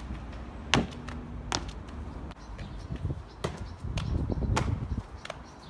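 Trainers striking brick and stone as a free runner takes off and lands on a wall: a few sharp knocks over a steady low rumble.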